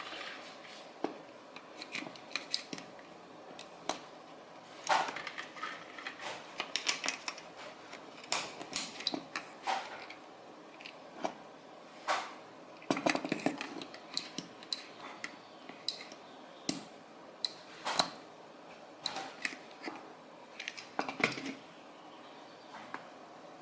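Irregular sharp clicks, clacks and light rattles of small hard plastic and metal parts being handled, with busy clusters of clicks between quieter gaps.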